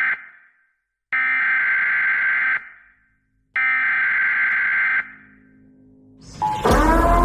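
An alarm buzzer sounds in long, even blasts of about a second and a half, each cutting off into a short echo: one ends at the start and two more follow. A faint low hum follows, then music swells in near the end.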